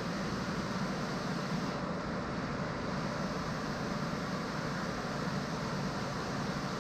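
Steady, unchanging noise of a running machine, such as a motor or blower.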